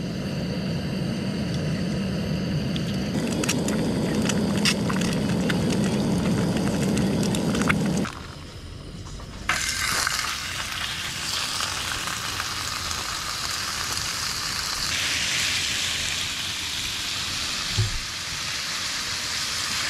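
Pork bulgogi sizzling in a hot frying pan on a camping gas stove: a sudden loud hiss about halfway through, then steady frying. Before that, a low steady rush with a few sharp clicks while the empty pan heats over the burner.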